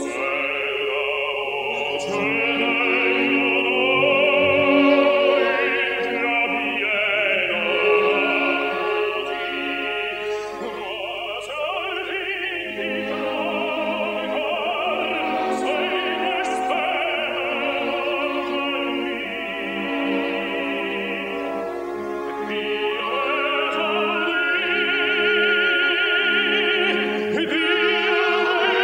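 Operatic singing with a wide vibrato over a classical accompaniment of sustained notes.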